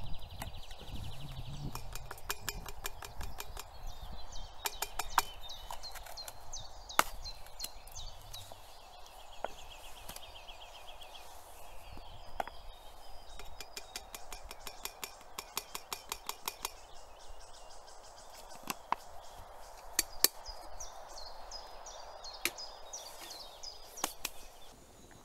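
Camp cooking gear clicking and clinking in irregular sharp knocks over a steady hiss, with a small bird trilling and chirping now and then.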